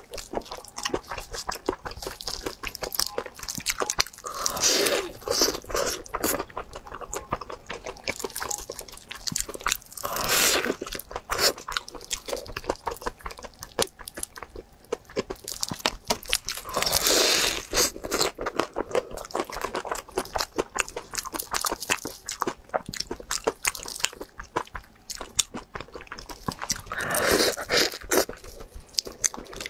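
Close-miked eating of a crisp-crusted pastry filled with purple glutinous rice. About four louder crunching bites come several seconds apart, with a steady patter of chewing and small crackles between them.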